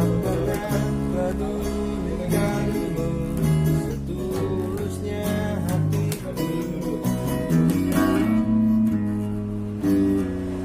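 Acoustic guitar strummed through a run of changing chords.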